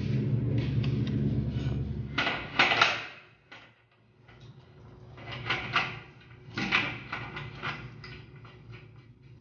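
A steady low mechanical hum cuts off suddenly about two seconds in, followed by scattered knocks and clatter of things being handled.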